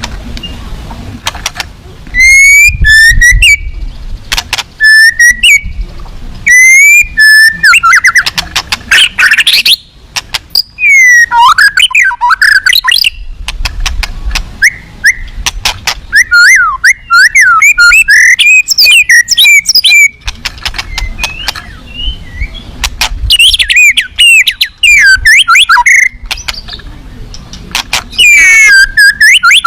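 White-rumped shama (murai batu) singing loudly: repeated bursts of rich, fast-gliding whistles and trills with short pauses between phrases, its varied song mixed with mimicked calls.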